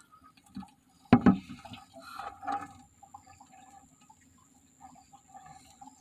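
Water sloshing and splashing in a bucket, with a sudden bump about a second in, then fading to small scattered drips and rustles.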